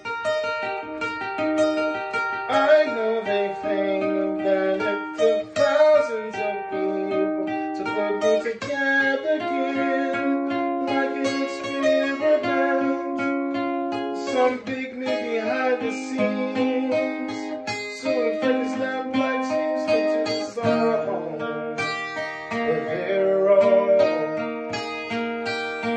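Ibanez acoustic guitar playing chords of a slow ballad, notes ringing on from one change to the next.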